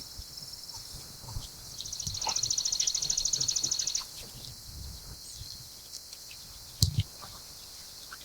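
A high, rapid, dry trill, evenly pulsed, lasting about two seconds from a small outdoor creature such as a songbird or insect, over faint outdoor background noise. A single sharp click comes near the end.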